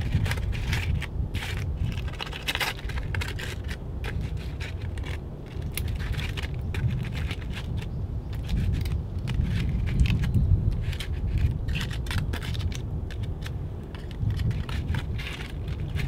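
Aluminium foil crinkling and crackling in irregular bursts as metal tongs pull open a foil packet, with the tongs scraping on the foil. A steady low rumble of wind runs underneath.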